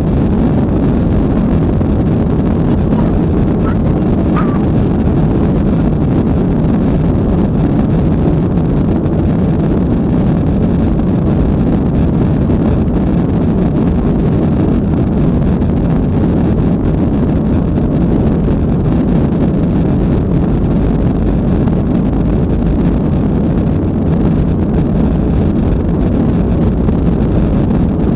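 Steady low rumble inside a Boeing 737-800 cabin over the wing as the airliner taxis, its CFM56-7B engines running at taxi thrust. A brief high chirp sounds once about four seconds in.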